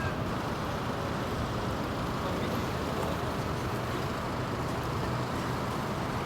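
Steady vehicle noise: an even low rumble with a hiss over it.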